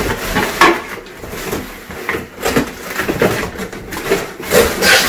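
Long cardboard shipping box being pulled and torn open by hand: irregular scraping, rustling and knocking of the cardboard flaps and sides.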